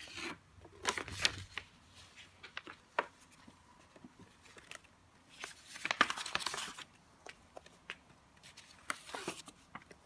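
A CD single's plastic case and paper insert being handled: scattered light plastic clicks and short bursts of paper rustling, in clusters about a second in, around the middle, and near the end.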